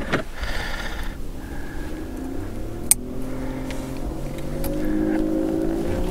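An engine running at a distance, its pitch slowly rising over several seconds, with one sharp click about three seconds in.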